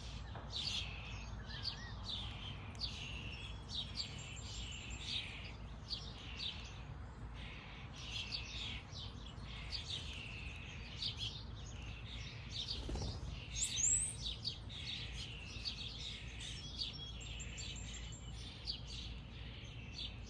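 Small birds chirping continuously in a dense chorus of short, repeated high chirps, with one louder rising note about thirteen seconds in, over a steady low rumble.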